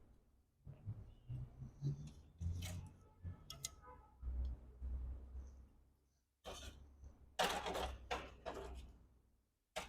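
Irregular clicks, knocks and rustling of parts and tools being handled on a repair bench, in short bursts that cut off abruptly twice.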